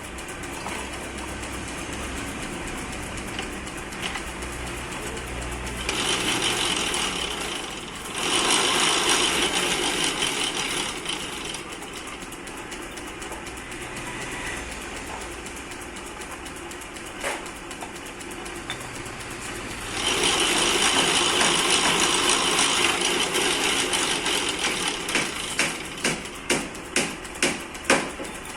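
Metal lathe running with a steady machine hum, and two long stretches of louder hissing noise from a tool working metal. Near the end comes a quick run of sharp clicks, about two a second.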